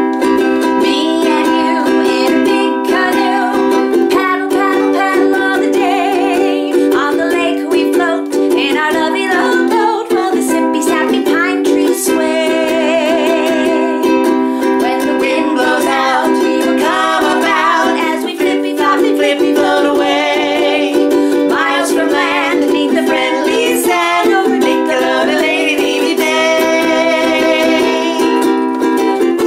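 Ukulele strummed as song accompaniment, with a voice singing a melody over it.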